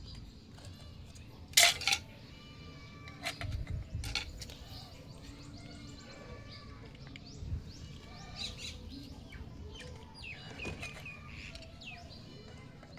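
Small plastic toy kitchen pieces clicking and knocking as they are handled, with a few sharp clicks, the loudest about a second and a half in and again just after. Birds chirp in short calls in the background throughout.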